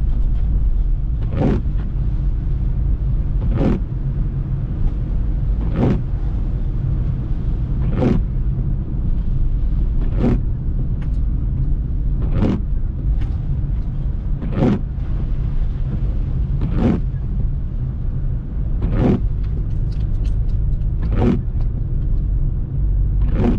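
Windshield wipers sweeping a wet windshield, one swish about every two seconds, over the steady low rumble of the car's engine and tyres on wet road inside the cabin.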